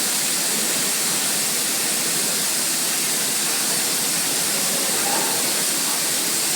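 A steady, even hiss that holds at one level throughout, strongest in the high range.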